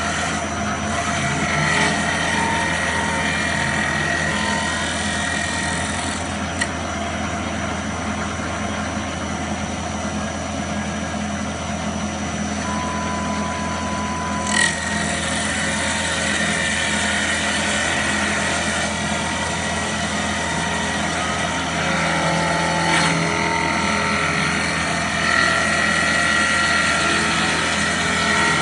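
Double-axis, four-knife wood lathe running, its knives cutting a turning wooden spindle: a steady machine hum under a dense cutting noise, with a few sharp clicks, about a quarter of the way in and again near halfway.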